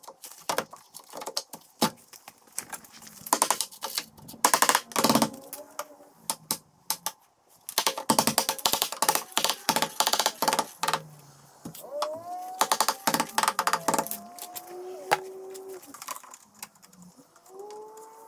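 Aluminium door threshold being tapped and knocked into place with a hammer: runs of quick metallic knocks and clicks. In the second half come a few drawn-out tones that slide up and then hold.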